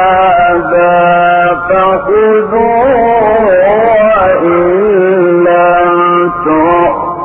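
A man reciting the Quran in the melodic, chanted mujawwad style, holding long ornamented notes that waver and bend in pitch, with a few brief pauses between phrases.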